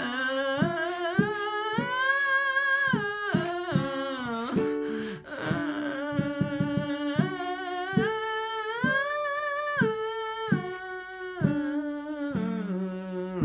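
Male voice singing a vocal scale exercise for blending chest voice into head voice: two runs that climb step by step to a held top note and come back down, a third starting near the end, over guitar chords.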